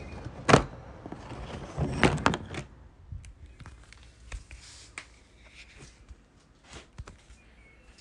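A sharp thump about half a second in, then a cluster of knocks around two seconds in, followed by fainter scattered clicks.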